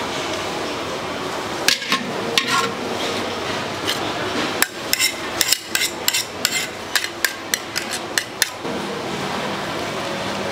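Metal cooking utensil clanking against a pan while pad thai noodles are stir-fried: two single knocks, then a quick run of about a dozen sharp clanks over a few seconds, over steady background noise.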